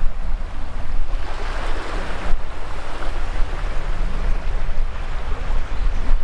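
Shallow surf washing up the sand right at the microphone, with wind rumbling on the microphone. One wash of water swells about a second in and breaks off sharply about two seconds in.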